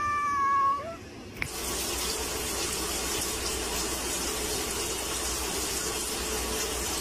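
A cat's meow trails off about a second in; then a steady rush of running water, like a tap turned on, starts and runs on evenly.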